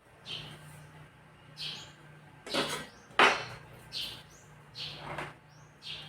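A small bird chirping over and over, short high chirps about once a second. Two sharp clicks come in between, about two and a half and three seconds in, over a faint steady low hum.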